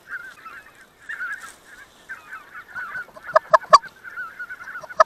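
A flock of greater white-fronted geese calling overhead, a continuous chatter of short, high yelping calls. A little past the middle come three louder, sharper honks in quick succession, and three more near the end.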